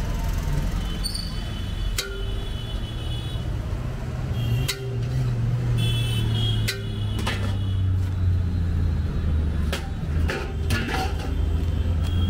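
Street traffic running past a roadside food stall, with a steady low engine rumble that swells about halfway through and several short, high-pitched horn toots. Scattered sharp metallic clinks come from a serving ladle against a large aluminium biryani pot and a steel bowl.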